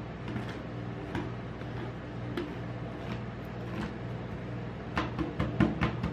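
Metal spatulas tapping and scraping on an ice cream roll cold plate as they score the frozen sheet into strips: a few sharp taps, then a quicker run of taps about five seconds in, over a steady low hum.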